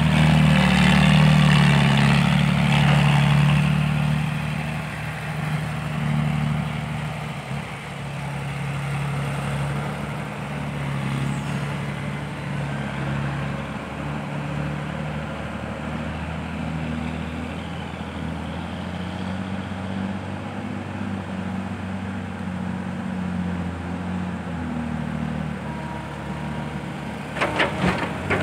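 Heavy diesel engine of a dump truck or excavator running, louder for the first few seconds and then steady. A quick run of sharp knocks near the end.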